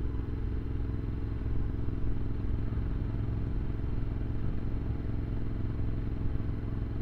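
Triumph Scrambler's air-cooled parallel-twin engine running steadily under light load, cruising at a constant speed of about 30 mph, with no rise or fall in pitch.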